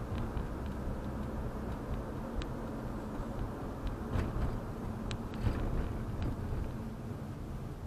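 Steady low rumble of a car's engine and tyres heard from inside the cabin while driving, with a few faint, irregular clicks.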